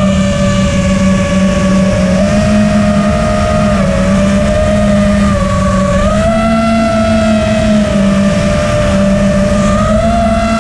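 FPV quadcopter's four T-Motor F40 Pro III brushless motors and propellers whining at a fairly steady cruising throttle, the pitch wavering up and down slightly with small throttle changes. Raw motor sound picked up by the on-board camera.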